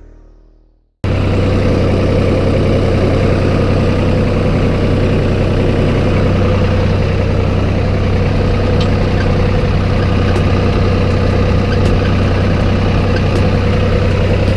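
Vehicle engine running steadily at constant speed, with a strong low hum. It cuts in suddenly about a second in, after music fades out.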